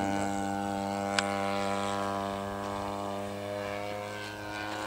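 Yak-54 RC model airplane's motor and propeller droning steadily overhead in flight, slowly fading and dropping in pitch near the end.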